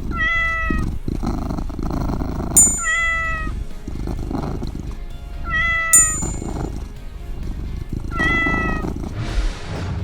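An animal call, short and pitched with a slight fall at the end, repeated four times at even spacing, about every three seconds, over background music.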